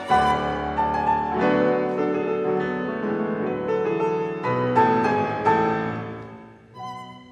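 Steinway concert grand piano playing a classical passage on its own, with several strong chords, dying away near the end.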